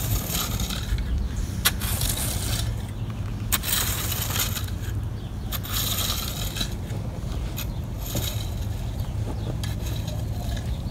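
Metal bow rake dragged through loose, rocky soil in repeated strokes about every two seconds, its tines scraping over grit and small stones. A steady low rumble runs underneath.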